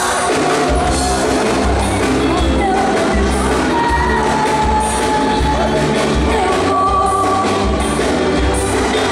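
Live Brazilian calypso band playing loud through a PA, with singing over a bass-heavy beat.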